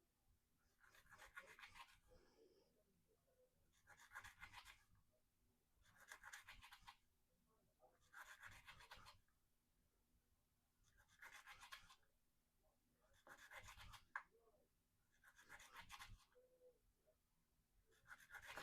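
Knife blade making eight scratchy strokes, about one every two seconds.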